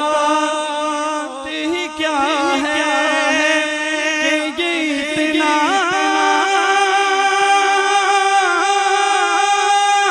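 A man singing a naat solo, without instruments: ornamented runs that bend up and down in pitch, then a long held note through the second half.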